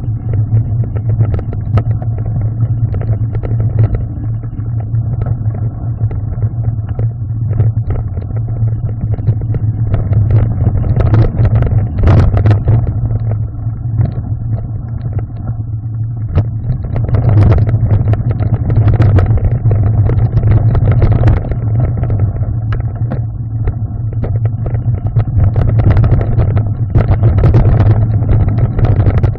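Mountain bike rolling over a rough gravel singletrack, heard through a camera on the handlebars: a constant low rumble with clattering and rattling from the bike. It gets louder and rougher about ten seconds in, again around seventeen seconds and near the end.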